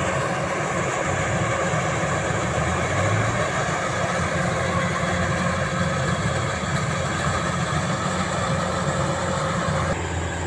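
Kubota combine harvester's diesel engine running steadily nearby, a continuous hum that shifts slightly near the end.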